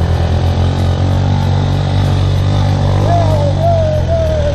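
Small single-cylinder engine of an old Bajaj Ambition motorcycle running steadily under way, a constant low drone. About three seconds in, a wavering melodic line joins over it.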